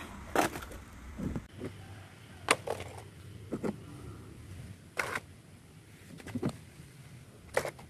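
Mud-coated plastic toy vehicles being handled and set down on a hard floor: a scattered series of short knocks and clacks, some eight or nine over several seconds.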